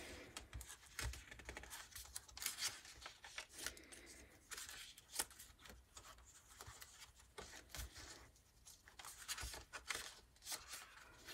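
Faint rustling and soft scattered clicks of paper and card pages being handled and turned in a handmade junk journal.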